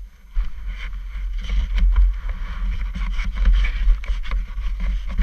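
Wind rumbling across a helmet-mounted camera's microphone while riding an ATV, with the quad's engine running underneath and scattered knocks from the ride.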